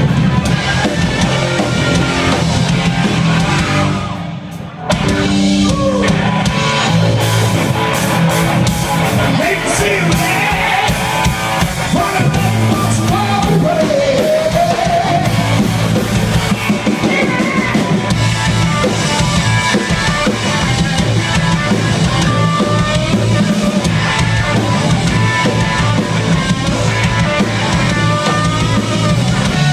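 A live rock band playing: electric guitars, electric bass and a drum kit, with a male lead vocal. About four seconds in, the band drops back to a quieter moment for about a second, then comes back in at full level.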